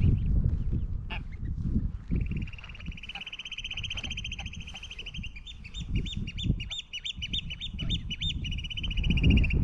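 A bird's long, high, fast trill, held for about seven seconds, with a run of quick rising-and-falling whistled notes over it in the middle.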